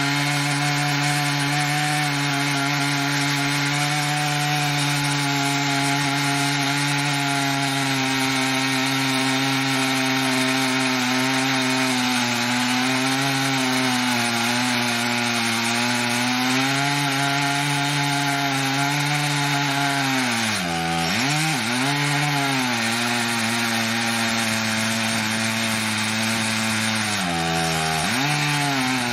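Stihl MS880 two-stroke chainsaw with a 59-inch bar, run in an Alaskan chainsaw mill, ripping lengthwise through a large red oak log under full load. Its engine holds a steady high pitch, then dips sharply and picks back up twice, about twenty seconds in and again near the end.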